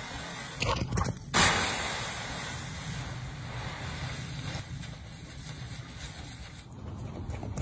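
Dry leaves rustling and crunching as a dog burrows through and bursts out of a leaf pile. There is a steady rushing noise throughout, and a few sharp crunches about a second in.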